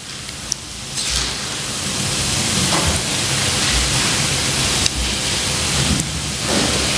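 Loud steady hiss of static over the PA system, swelling over the first couple of seconds, with a few faint low thumps: a playback fault from the computer that is playing up.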